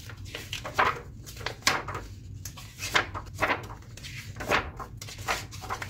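Pages of a hardcover picture book being turned and handled: a series of short paper rustles and light brushes, over a faint low hum.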